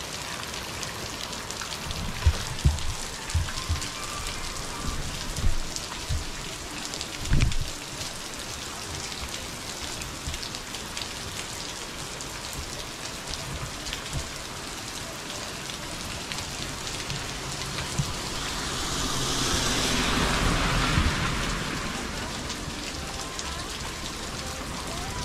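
Heavy rain falling steadily, with several sharp low thumps in the first eight seconds and a louder hissing rush that swells and fades about twenty seconds in.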